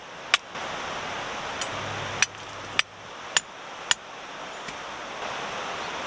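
Forged steel pegs knocked with a metallic ring as a trivet is set up over the fire: five sharp clinks, the last four evenly about half a second apart, over a steady rushing noise.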